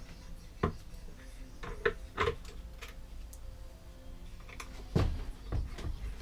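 Scattered clicks and knocks of a lawnmower wheel being handled and pushed back onto its metal front axle, with light clatter of small parts; the loudest knock comes about five seconds in.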